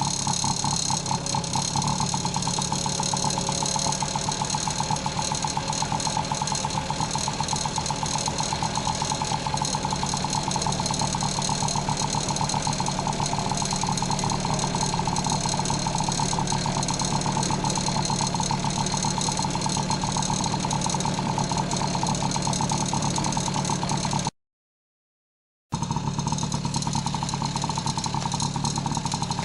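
Honda Motocompo NCZ50's small single-cylinder two-stroke engine running steadily with a fast, even pulse. The sound drops out completely for about a second near the end.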